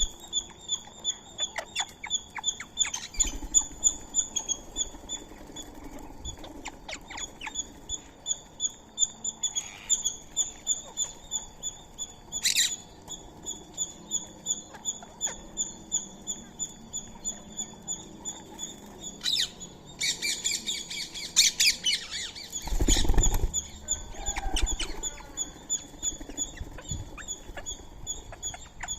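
Birds calling at a feeding spot: a short high chirp repeated about three times a second throughout. About twenty seconds in comes a burst of louder squawks, with a thump near the end of it.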